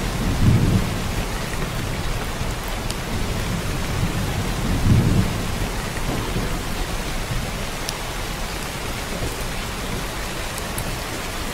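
Steady rain with thunder: an even rain hiss, with two low rumbles of thunder swelling about half a second in and again around five seconds in.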